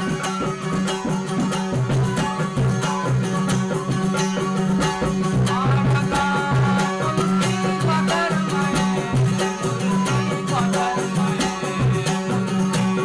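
Balochi folk music on traditional string instruments: a steady low drone under a regular beat, with a melody line that slides in pitch now and then.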